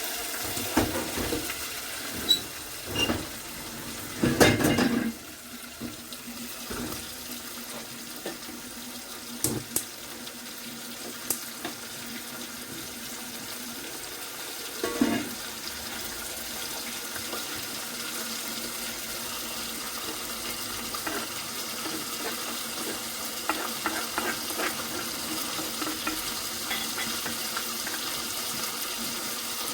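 Steady rush of water, with a few knocks and clatters, the loudest about four seconds in and another around fifteen seconds, and light ticks near the end.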